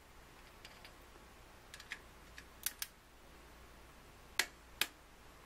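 Click-type torque wrench ratcheting and clicking as it tightens intake manifold bolts on the first pass at about 15 ft-lb: a handful of sharp, separate clicks, the loudest about four and a half seconds in.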